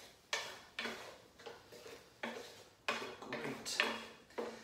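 Wooden spoon stirring diced tomatoes in a frying pan, scraping across the pan in about eight quick strokes, roughly two a second.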